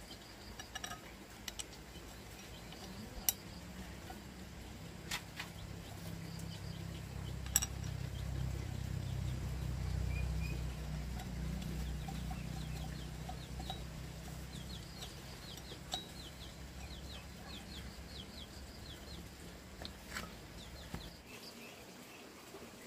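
Chickens clucking and chicks peeping, over a low hum that swells around the middle and stops abruptly near the end, with a few sharp clicks.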